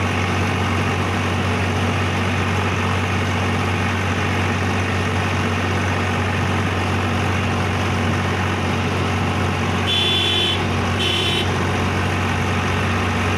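Swaraj 735 XT tractor's three-cylinder diesel engine running steadily while pulling a loaded trolley on the road, heard from the driver's seat. Two short high beeps come about ten and eleven seconds in.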